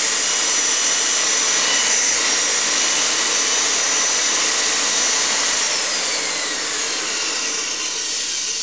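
Dynamic SMX 800E 800-watt commercial immersion mixer motor running at speed with no load, a steady whir with a high whine; held upright, it sounds okay. Its drive coupling is stripped, so the motor spins without turning the shaft. Past the middle the whine slowly falls in pitch and the sound eases off as it winds down.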